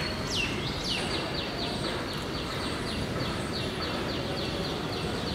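A bird calling: a few falling whistles near the start, then a rapid run of short downward chirps, about five a second, over steady low background noise.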